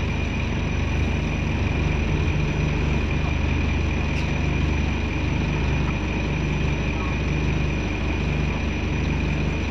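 Scania N230UD double-decker bus's five-cylinder diesel engine idling, heard from a passenger seat inside the bus: a steady low hum with a gentle pulse, over which runs a steady high-pitched whine.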